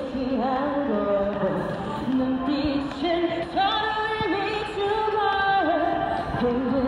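A woman singing a song with backing music, the melody held in long, sliding notes.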